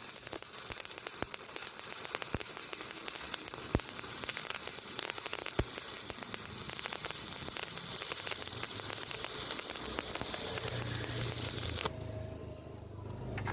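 Stick-welding arc crackling and sizzling steadily on thin square steel tubing, with sharp pops through it; the arc breaks and the sound cuts off suddenly near the end.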